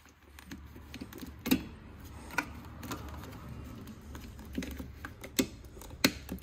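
Plastic push-in rivet clips being pressed into holes in a rail under the vehicle, snapping in with a handful of sharp, irregular clicks over a low hum.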